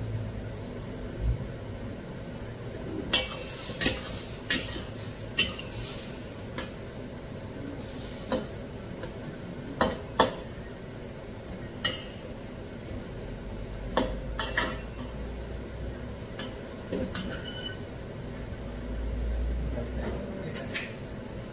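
A metal wok spatula stirring sliced mushrooms in a steel wok, clinking and scraping against the pan at irregular moments, about a dozen times. A steady frying sizzle runs underneath.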